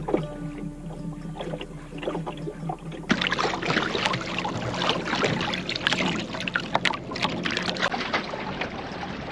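Water rushing and splashing along the hull of a small wooden sailing yawl under way. It is quieter for the first three seconds, with a faint steady hum and a few clicks, then the splashing and hiss of the bow wave grows louder and denser.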